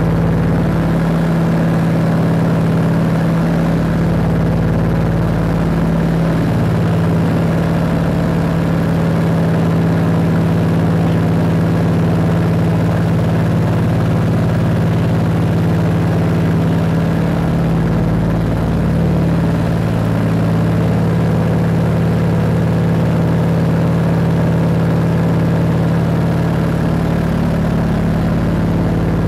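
Cabin drone of a Scottish Aviation Twin Pioneer's two radial piston engines and propellers in steady flight: a loud, even hum with a strong low tone that does not change.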